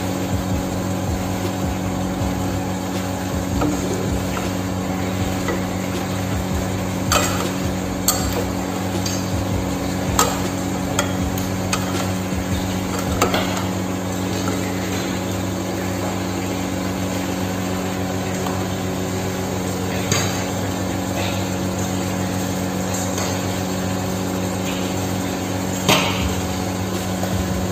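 Metal ladle stirring chicken and vegetables in an aluminium pot, knocking sharply against the pot's rim and sides a handful of times, over a steady low hum.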